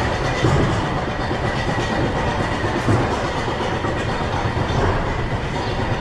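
The Ultimate roller coaster's train running along its track with a steady rumble and rattle, and a few heavier low thumps.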